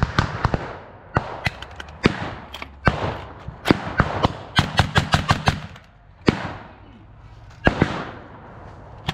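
Blank gunfire from several small arms: irregular sharp shots that echo after each report. The shots come fast and overlapping around the middle, then thin out to a few single shots.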